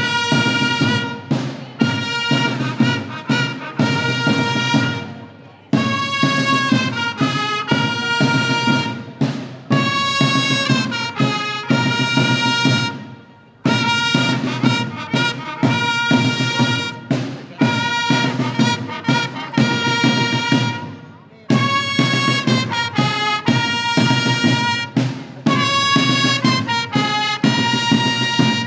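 Brass band playing a tune of long held notes, with a short gap between phrases about every eight seconds.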